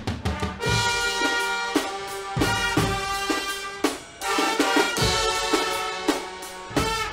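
Guggenmusik brass band playing live: trumpets, trombones and sousaphone hold long loud chords over drum kit and bass drum. The chords break off for a moment of drum beats about four seconds in, then come back.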